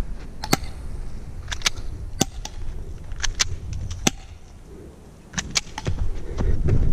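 Airsoft pistols firing in a duel: about a dozen sharp snaps at irregular intervals, with a short lull around five seconds in, over a low rumble.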